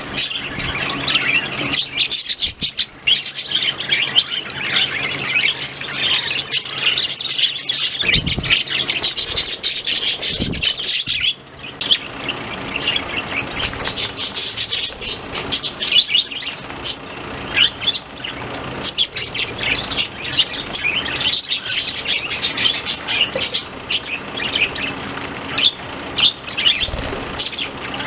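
A flock of budgerigars chirping and chattering constantly, with a brief lull about eleven seconds in, over a faint steady low hum.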